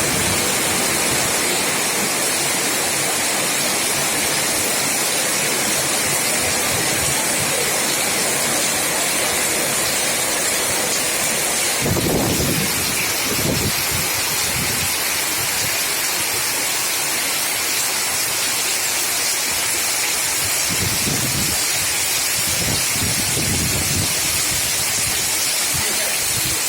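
Heavy rain falling steadily in a strong wind, with low gusts buffeting about twelve seconds in and again near the end.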